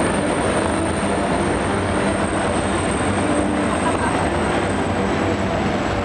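Helicopter running on the ground, its engines and rotor making a steady dense noise with a thin high whine on top, over the murmur of a large stadium crowd.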